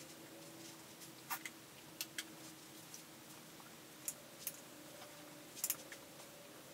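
Damp makeup sponge dabbing cream foundation onto the face: a handful of faint, irregular soft clicks and taps over a low room hum.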